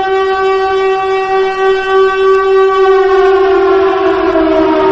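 Civil-defense-style siren sounding as an emergency alert alarm for a meteor warning: one strong wailing tone rich in overtones, held steady, then slowly falling in pitch from about three seconds in.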